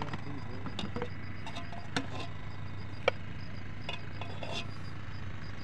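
A serving spoon and plates clinking and tapping now and then as cooked rice is dished out from a steel pot, with a sharp click about three seconds in, over a steady low hum.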